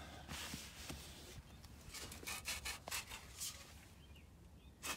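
Faint rubbing and scuffing handling noise as the camera is moved: a run of short scrapes over the first three seconds or so, then quieter.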